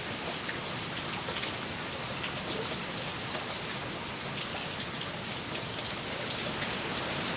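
Heavy rain pouring down steadily, with many sharp drop ticks from raindrops striking close by.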